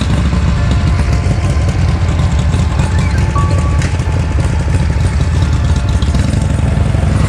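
Harley-Davidson V-twin motorcycle engine idling with a steady low rumble.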